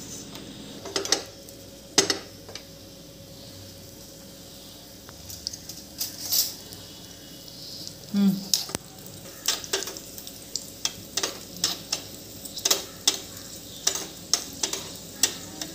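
Cashew nuts frying in hot ghee in a small pan, sizzling faintly. A steel spoon stirs them, clinking and scraping against the pan, and the clinks come quickly, several a second, from about halfway through.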